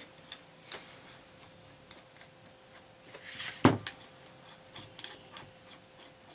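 Light clicks and taps of drill parts being handled, with one louder knock about three and a half seconds in, over a faint steady hum.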